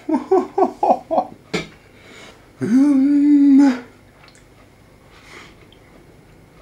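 A man's voice: a quick run of about six short pitched sounds, each dropping in pitch, then a click, then one long steady hummed "mmm" of enjoyment while eating a rice ball.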